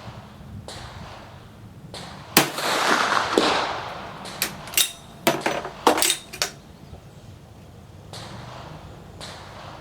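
A single rifle shot from a Swiss 1878 Vetterli firing a hand-loaded centre-fire round, about two seconds in, with a long echo trailing after it. It is followed by a quick series of sharp metallic clicks as the bolt is worked.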